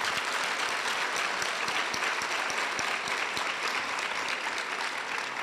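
A large audience applauding steadily: dense, even clapping from many hands.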